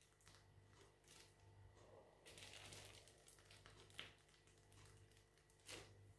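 Near silence, with a few faint, short rustles of a plastic piping bag being squeezed as buttercream is piped.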